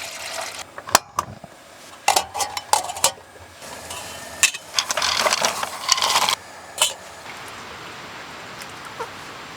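Cooking gear being handled: utensils and pans clinking and knocking, with a rustly stretch of clatter in the middle.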